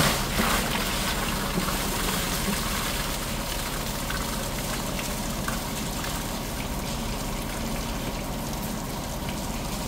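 Waste water from a Temsa coach's restroom holding tank gushing out of the opened dump valve and pipe onto a steel floor drain grate, the flow gradually easing off toward a thinner stream as the tank empties.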